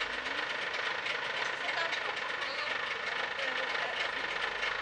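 Trabant's small two-stroke twin idling with a steady, fast, even beat, with people's voices faint in the background.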